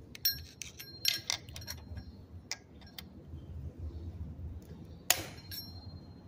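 Light metallic clicks and clinks of a small tool levering a rocker arm on a Toyota 2GR-FE cylinder head. About five seconds in there is one sharp, louder metal click as the rocker seats back onto its valve stem cap and lash adjuster.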